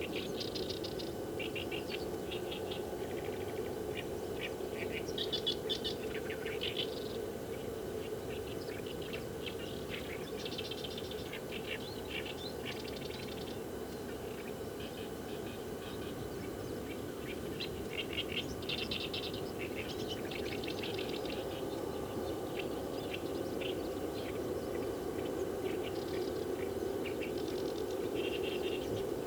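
Wild birds chirping, many short calls in quick runs of notes coming and going throughout, over a steady low hum.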